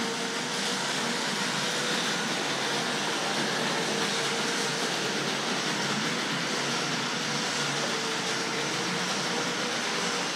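Several vintage Tri-ang 00 gauge model trains running on metal track: a steady rumble of wheels on the rails with a faint, even motor whine.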